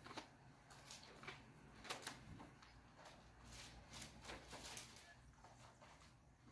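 Faint, intermittent rustling and flicking of thin Bible pages being turned.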